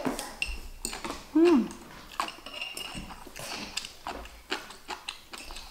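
Metal chopsticks and a fork clicking and scraping against ceramic plates and bowls in scattered taps while eating noodles. About one and a half seconds in comes a short, loud vocal sound that falls in pitch.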